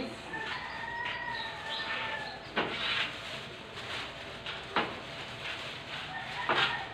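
Plastic bags rustling and crackling in three sharp bursts as they are handled and shaken open. Early on, a single long animal call of about two seconds sounds in the background.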